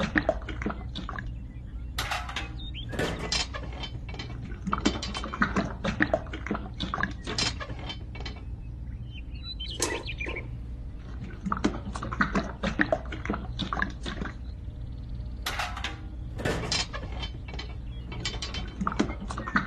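Irregular mechanical clicking and clatter, with many sharp clicks in quick, uneven runs, over a steady low hum.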